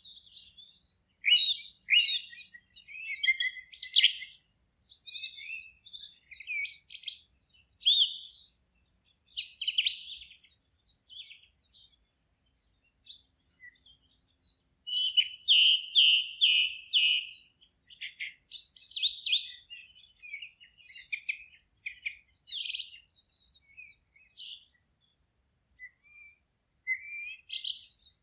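Songbirds singing in a mix of short, high chirps and song phrases, with a run of about five repeated notes about halfway through.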